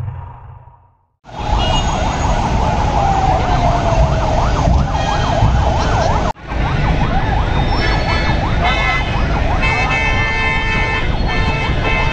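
Several emergency vehicle sirens wailing in a fast up-and-down yelp, overlapping one another over loud street and crowd noise. They start about a second in, after an intro jingle fades out, and break off for an instant near the middle.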